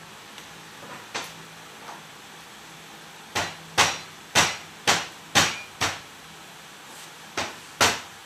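Lemongrass stalks being pounded to bruise them before they go into the pot: a run of sharp knocks, six in quick succession about half a second apart, then two more near the end.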